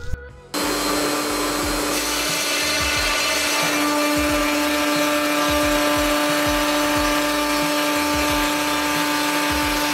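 CNC 6040 router milling a full-width pocket 10 mm deep into a white-faced board with an 8 mm end mill: a steady cutting noise over the spindle's held whine, starting abruptly about half a second in.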